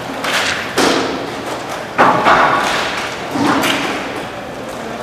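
Hockey play heard in an echoing rink: about five sharp knocks and thuds of puck and sticks against the boards and glass, the loudest about two seconds in, each ringing briefly in the large hall.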